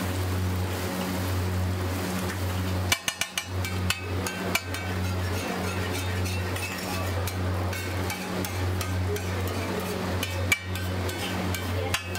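Steel spatula scraping and chopping egg on a large flat iron tawa, with a quick run of sharp clinks as the blade strikes the plate about three seconds in and another clink about ten and a half seconds in, over a steady low hum.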